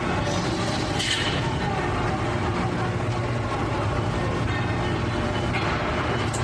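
Factory machinery running: a steady low hum with clatter, and a brief burst of hiss about a second in.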